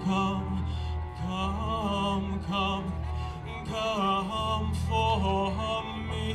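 Slow live music from cello and guitar: a low held note under a melody that slides between notes.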